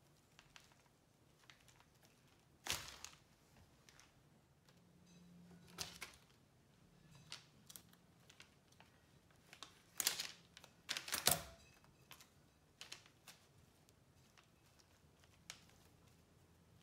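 Faint handling sounds as jute twine is tied around a bundle of flower stems and a rubber band is cut with scissors: scattered soft clicks, rustles and crinkles. The loudest is a cluster of sharp clicks about ten to eleven seconds in.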